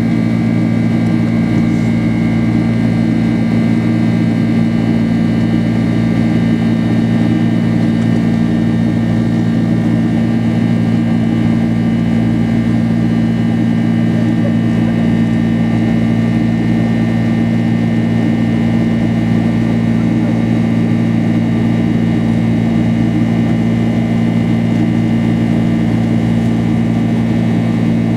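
Steady cabin drone of a Boeing 767 in flight, its two turbofan engines and the airflow heard from inside the passenger cabin, a loud constant rumble with several steady low hums.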